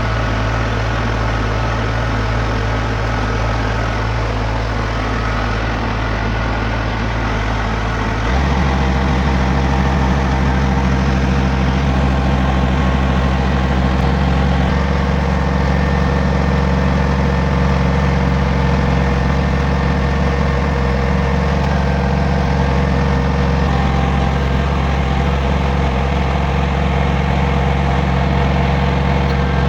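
Heavy diesel engine of a Wirtgen W2000 road milling machine running steadily; about eight seconds in its note changes abruptly and becomes a little louder, then holds steady.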